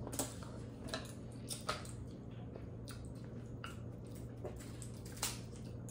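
Faint wet squishes and scattered small crackles of soft boiled seafood shell being peeled apart by hand. A low steady hum runs underneath.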